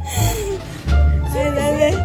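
Background pop music with a heavy bass line, with people's voices over it.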